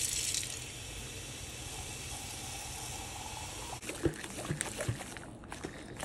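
Kitchen faucet running a steady stream of water into a mason jar of dirt, filling it. The water stops about four seconds in, followed by a few light knocks.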